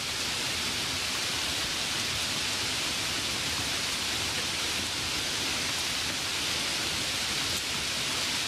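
A steady, even hiss with no breaks or knocks, strongest in the upper range, like rain or white noise.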